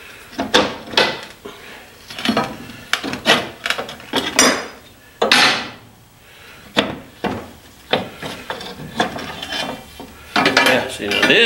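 Steel leaf-spring leaves from a 1962 Dodge D100 front spring pack being handled on a wooden workbench: irregular clanks and knocks of metal on metal and on wood, with scraping as leaves slide against each other, busiest near the end.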